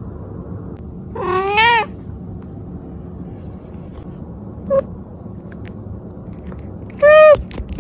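Domestic cat meowing: a long meow that bends up and down about a second and a half in, a short chirp-like meow near the middle, and another meow near the end, over steady low background noise.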